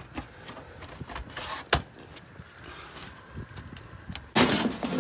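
Light handling of steel roofing pieces: a few faint clicks and one sharp metal tap a little under two seconds in. Near the end a loud rustling rush sets in and keeps going.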